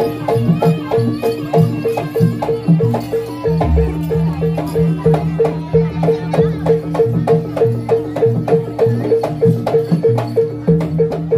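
Jaranan accompaniment music from a Javanese gamelan-style ensemble. A pitched percussion note is struck in a steady, fast pulse, about four strokes a second, over a kendang drum pattern whose low notes shift every second or so.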